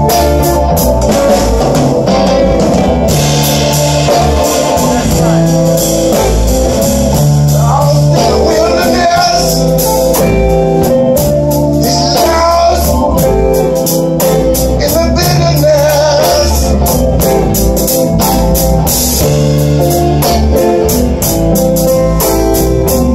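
Live blues band playing: a male singer singing over electric guitars, bass guitar and a drum kit.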